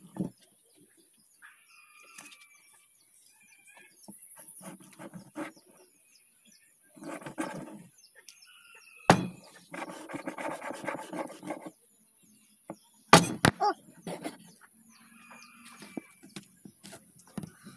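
Meat cleaver striking a wooden chopping board in a few sharp knocks, the loudest about nine and thirteen seconds in, with birds chirping faintly between.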